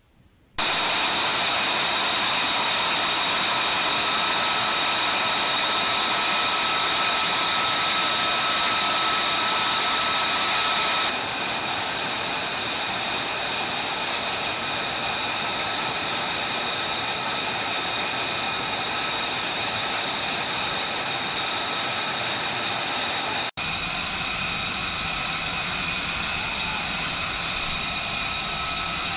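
Jet engine running steadily: an even rushing noise with several high, steady whine tones. It steps slightly quieter about 11 seconds in and drops out for an instant near 23 seconds.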